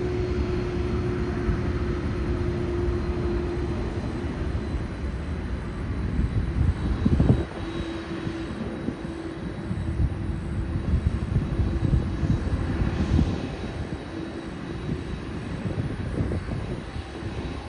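Jet airliner engines running with a steady drone over a low, uneven rumble, with a few brief knocks.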